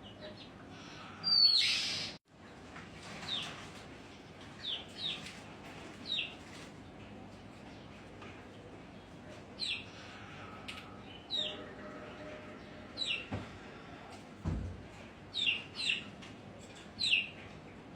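Songbirds at a bathing spot giving short, sharply falling chirps, singly and in pairs, scattered irregularly. A louder, rough rush of sound comes about a second and a half in, and a dull low thump comes later.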